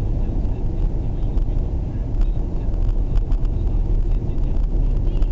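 Steady low rumble of road and engine noise inside a car's cabin while it drives along at a steady speed.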